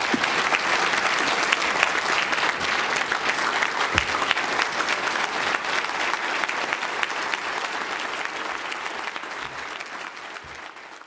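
Audience applauding, many hands clapping steadily, then fading away near the end.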